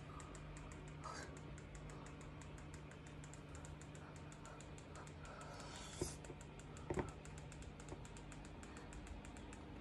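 Quiet room with a faint steady hum and a run of faint, even ticking, several ticks a second, with two louder clicks about six and seven seconds in.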